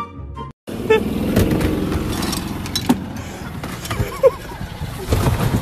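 A few notes of music cut off, then a golf cart drives fast over grass: a steady rush of motor, tyre and wind noise with sharp knocks and rattles, a short shout about four seconds in, and a cluster of louder knocks near the end.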